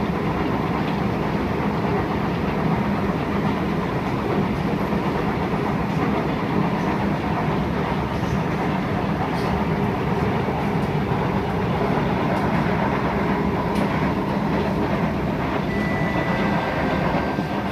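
Interior of an SMRT C151 metro train running at speed, its flat wheels pounding in a rapid, steady rattle like a machine gun.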